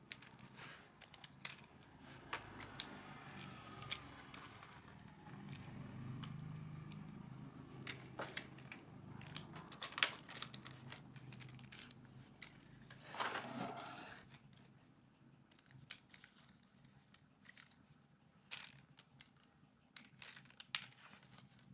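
Light clicks and knocks of small plastic toy pieces being handled, with a longer rustle about thirteen seconds in, like plastic packaging being crinkled.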